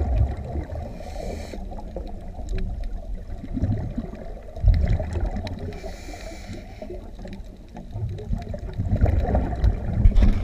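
Underwater audio of a scuba diver breathing: the regulator hisses briefly on two inhalations, about a second in and about six seconds in. Exhaled bubbles rumble and gurgle between them, about five seconds in and again near the end.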